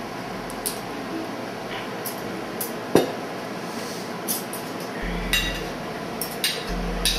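Serving utensils clinking and scraping in a plastic salad bowl as a salad is tossed, with scattered light clicks and clinks of tableware. One sharper knock about three seconds in, and a few quick clicks near the end.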